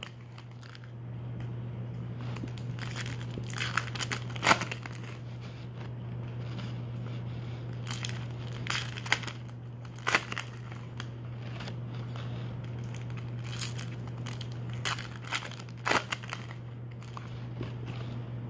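Foil wrappers of trading card packs crinkling and tearing as they are opened by hand, in irregular clusters of sharp crackles, over a steady low hum.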